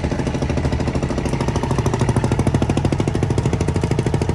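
Fishing boat's diesel engine running steadily with a fast, even pulsing beat.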